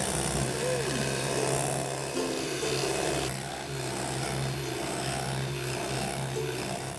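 Electric hand mixer running steadily with a low hum, its two beaters churning egg yolks in a stainless steel bowl.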